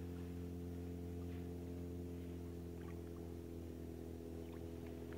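Steady drone of a boat engine running at constant speed, a low hum with several even tones, with faint splashing of a dog wading through shallow water.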